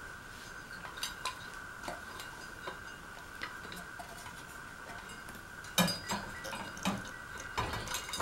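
Scattered light metallic clicks and clinks of small ceiling-fan hardware and tools being handled, getting busier and louder near the end, over a steady faint high hum.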